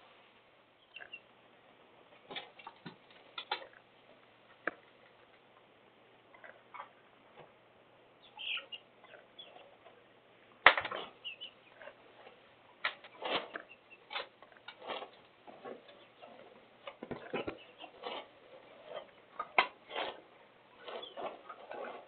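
Irregular taps and clicks, sparse at first, with one sharp knock about halfway and denser tapping after it. Chickens in the run cluck faintly.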